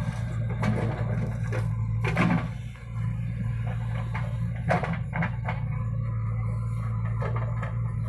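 Diesel engine of a JCB 3DX backhoe loader running steadily while it digs and loads soil, with a few sharp knocks from the bucket and falling earth.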